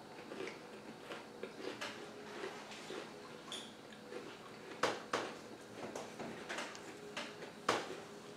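Quiet eating and snack-handling noises: soft mouth sounds and small clicks, with a few sharper crisp snaps about five seconds in and again near the end.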